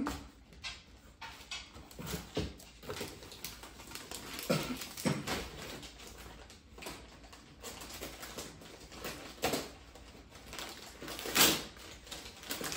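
Scattered rustling and light knocks of paper and cardboard packaging as gifts are handled, with a louder rustle of wrapping paper near the end.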